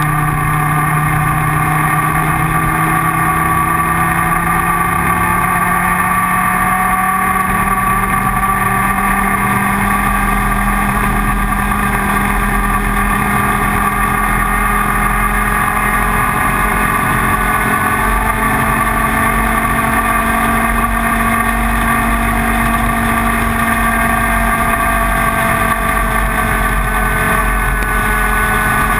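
IAME Leopard 125cc two-stroke kart engine running hard, a steady high-revving drone whose pitch climbs slowly and evenly.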